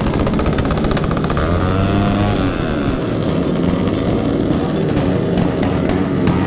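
A pack of motorcycle engines running and being revved loudly at close range, with rapid exhaust firing and the pitch of several engines rising and falling in revs.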